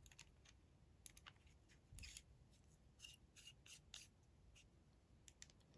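Faint scattered clicks and rubbing from fingers handling an Opus 88 demonstrator fountain pen and adjusting its clip.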